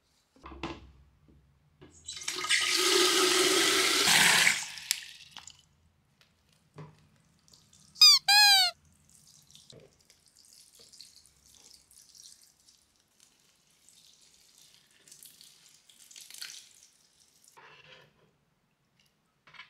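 Water poured from a watering can into potted plants: a steady pour of about two and a half seconds starting two seconds in, then faint trickles. About eight seconds in come two short squeaks, each falling in pitch, the loudest sounds here.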